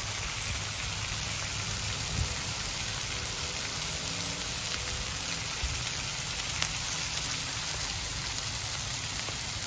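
Bacon-wrapped sandwiches sizzling steadily on a Blackstone flat-top griddle, the bacon frying in butter.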